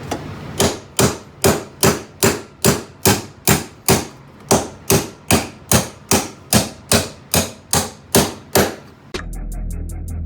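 Hammer blows on a socket, driving a seized wrist pin out of the piston of a 1998 Suzuki RM250: about twenty evenly paced metallic strikes, two to three a second. Music comes in near the end.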